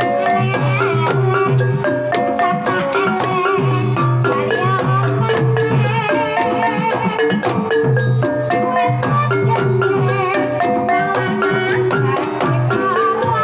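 Banyumasan gamelan playing a tayub gending: a kendang hand drum, small kettle gongs struck with a padded stick, and a xylophone-like melody that repeats, with low gong tones about every second. Over it a sinden sings a wavering line.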